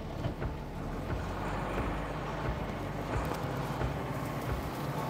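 1992 Jeep Wrangler YJ's engine running steadily while the Jeep drives a dirt trail, with scattered knocks and rattles over bumps.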